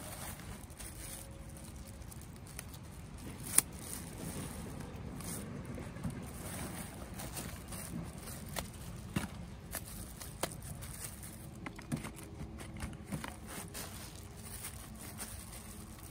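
Plastic bags and foam netting on harvested guavas rustling and crinkling as hands handle the fruit, with scattered small clicks and one sharp click about three and a half seconds in.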